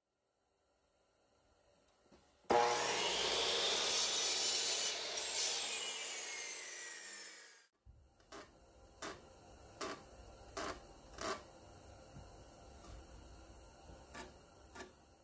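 Delta ShopMaster miter saw cutting a cedar board, starting abruptly about two and a half seconds in, its blade then winding down with a falling whine over several seconds. After it stops comes a string of faint, light wooden knocks.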